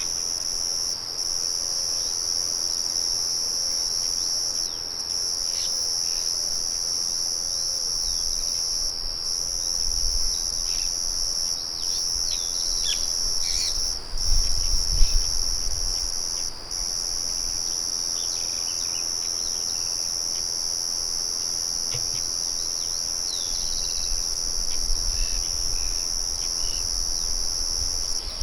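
Dense chorus of crickets trilling steadily at a high pitch, dropping out briefly every few seconds, with short bird chirps scattered through it. A low rumble comes and goes in the middle and again near the end, loudest about halfway through.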